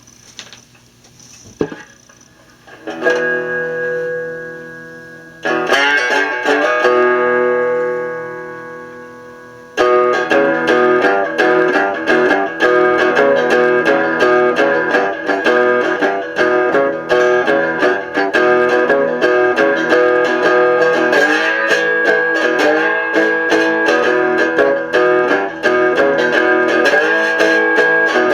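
Licence plate resonator cigar box guitar with a maple body and neck, played solo. Two chords ring out and fade, then from about ten seconds in it is picked and strummed without a break. Near the end the notes slide up into pitch several times.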